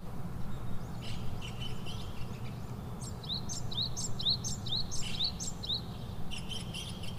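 Small birds chirping in the background, including a run of short, quick rising chirps in the middle, over a steady low hum.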